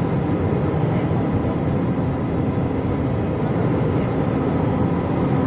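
Airbus A320neo cabin noise heard from a window seat over the wing during descent to land: a steady, loud rush of engine and airflow with a low hum.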